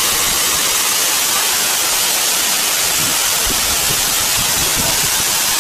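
Waterfall pouring into a rock pool: a steady, even rushing hiss.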